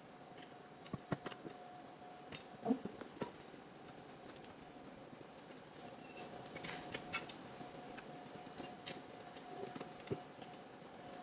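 Faint small metallic clicks and ticks at irregular intervals as screws are fitted by hand to join a ventilator stand to its trolley, over a faint steady hum.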